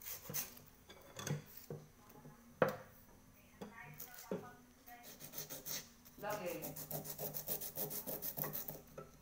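Sandpaper rubbed by hand over the underside of a small metal cauldron, scuffing the damaged surface ahead of a repair. The scraping strokes come scattered at first, then quicker and even for the last three seconds.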